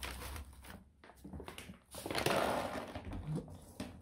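Plastic packaging rustling and crinkling as bags are handled inside a cardboard box, with a longer, louder stretch of crinkling about two seconds in.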